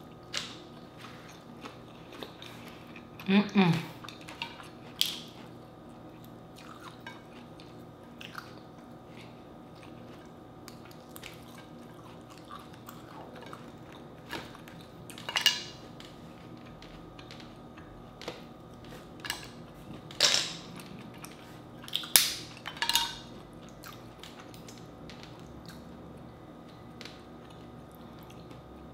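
Close-miked mukbang eating sounds from seafood: soft chewing and lip smacks, broken by a few loud, short wet slurps and smacks spread through. There are small clicks of shell and fork against the plate as mussels are picked apart.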